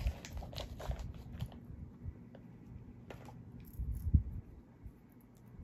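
Hands packing small items into a small coated-canvas handbag: soft rustling and sharp little clicks in the first second or so, then a few dull knocks about four seconds in.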